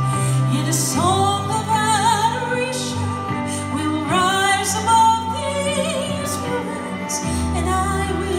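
A woman singing a slow song solo into a microphone: long held notes with vibrato, over instrumental accompaniment with sustained low notes that change about a second in and again near the end.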